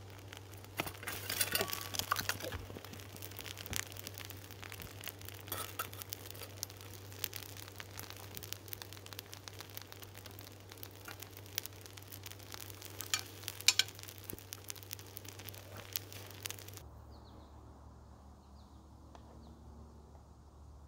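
Molten aluminum sizzling and crackling in a muffin-tin mold just after the pour, with many sharp ticks and a few louder clinks about thirteen to fourteen seconds in. The sound cuts off abruptly about seventeen seconds in to a much quieter background.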